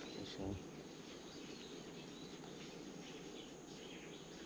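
Faint outdoor woodland ambience: steady low background noise with scattered small bird chirps and insects. A brief low sound comes about half a second in.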